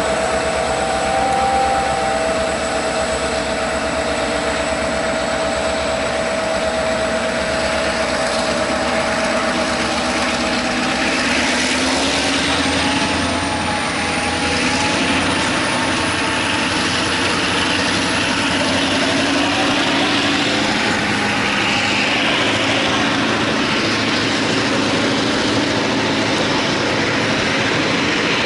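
Container freight train hauled by G512 and S303 diesel locomotives pulling away. The locomotives' engines are running under power, with steady engine tones at first. From about halfway the rolling noise of the loaded container wagons passing close by takes over.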